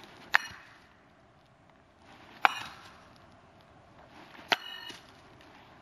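Throwing knives striking a pine trunk, three hits about two seconds apart, each with a short metallic ring.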